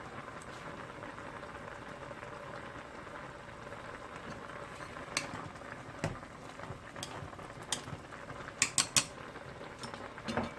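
Pot of ramyun water boiling on a stove with a steady hiss, broken in the second half by a handful of sharp clicks, three in quick succession about nine seconds in.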